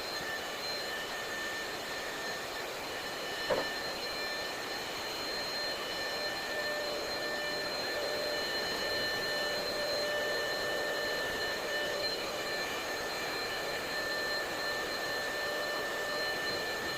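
Electric air pump running steadily with a high whine, inflating an air mattress. A single sharp click comes about three and a half seconds in.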